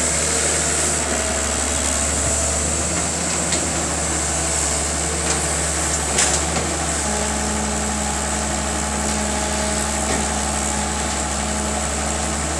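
Diesel engine of a Sumitomo S265EA hydraulic crawler excavator running steadily while the machine works its boom. About seven seconds in, its note steps up slightly.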